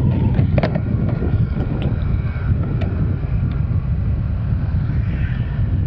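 Wind buffeting the microphone over the steady running of a Honda Click 125i scooter's single-cylinder engine while riding, with a few faint clicks.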